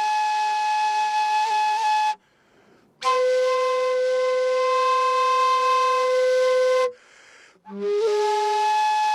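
Pinkuyllo, a long Andean duct flute, playing long held notes with breath pauses between them. One note breaks off about two seconds in. After a pause, a lower note is held for about four seconds. A third note starts near the end.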